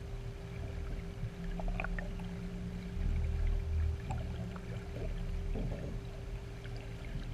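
Underwater ambient sound picked up through a GoPro housing: a low rumble that swells and fades every few seconds under a steady hum, with scattered faint clicks.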